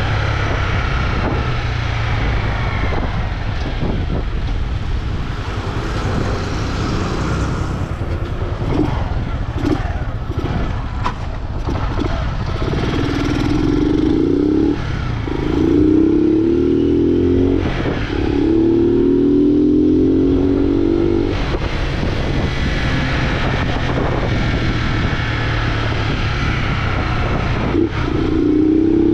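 Honda Fan 125 single-cylinder four-stroke engine, running without its air filter through a 'vareta' exhaust, while the bike is ridden. In the middle the engine pitch climbs three times in a row, each climb broken by a short gap at a gear change, and it falls away when the throttle is closed near the start and again later. A steady low rumble, as of wind on the microphone, runs beneath.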